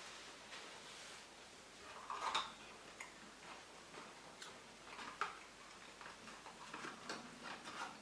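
Faint, irregular small clicks and taps, with a slightly louder brief sound about two seconds in.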